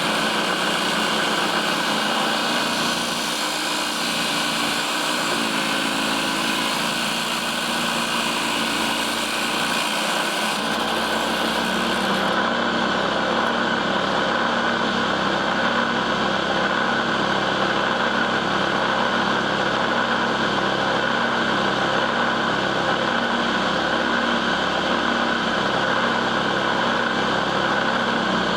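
Homemade table saw driven by a 997 DC motor, running steadily with a whine. About eleven seconds in, the sound changes: a lower hum comes in and the high hiss drops away.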